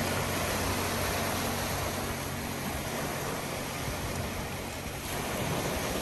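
Sea surf: waves washing onto the shore as a steady rushing hiss, swelling a little near the end.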